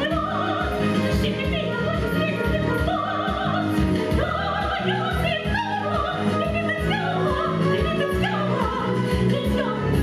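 Lively operetta number with a steady, even beat in the bass and a melody line above it, with female singing.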